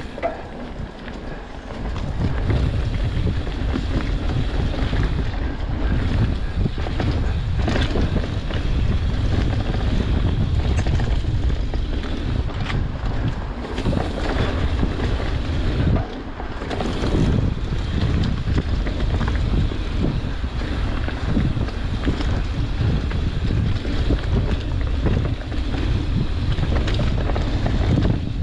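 Wind buffeting the camera microphone on a mountain bike ridden fast down dirt singletrack, together with the tyres rolling on the trail. The rumble grows louder about two seconds in, and occasional knocks come through as the bike hits bumps.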